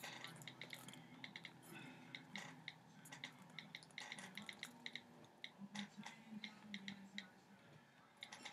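Faint, irregular light taps and clicks of fingertips on a tablet touchscreen, over near-silent room tone.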